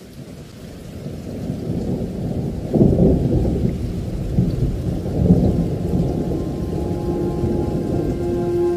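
Rolling thunder with rain, a low rumble that fades in and swells about three seconds in. Steady music tones come in near the end.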